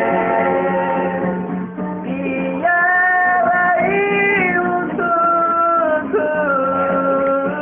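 Singing voice holding long, sustained notes of an Indonesian Christmas song over instrumental backing, with a steady low accompanying tone beneath; the notes hold and step to new pitches every second or so.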